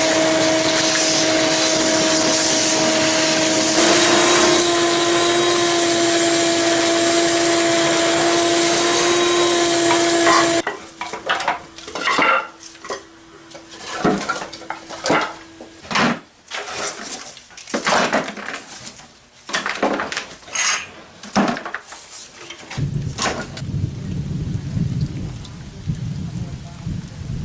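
Shop vacuum running steadily with a hum, cut off about ten seconds in, followed by irregular clattering and knocking of tools and objects being moved and set down. A low rumble comes in near the end.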